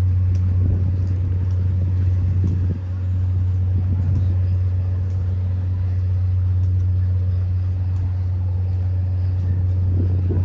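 A steady, loud low engine hum at one constant pitch, with a fainter overtone above it, over the background noise of a riverside walk.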